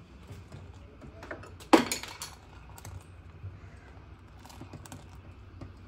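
Plastic ladle stirring pudding mix in a steel pot: small scattered clicks and scrapes, with one louder knock against the pot about two seconds in.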